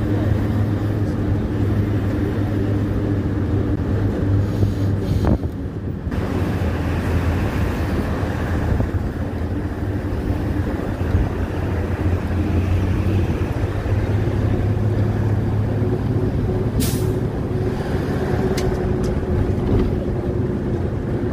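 Road vehicle's engine running with a steady low hum and road noise while driving, heard from inside the vehicle. A brief sharp sound comes about seventeen seconds in.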